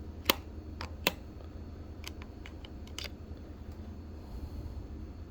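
Handling noise: a few sharp clicks and taps of small plastic parts being worked by hand, two louder ones in the first second or so and fainter ones around two to three seconds in, over a low steady hum.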